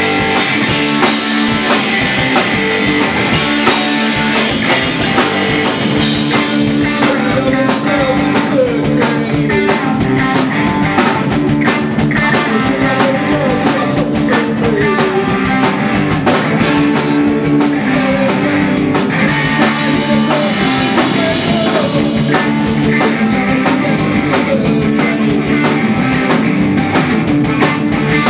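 Live rock band playing loud through the room: distorted electric guitars, bass guitar and a drum kit, with a man singing lead vocals.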